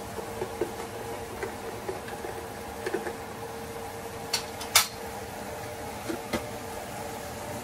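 A few light clicks and clinks of kitchen containers and utensils being handled, the sharpest about five seconds in, over a steady hum with a faint constant tone.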